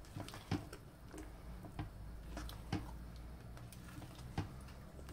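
Silicone spatula stirring thick mashed potatoes in a metal pot, giving faint, irregular ticks and knocks as it scrapes against the pot, over a low steady hum.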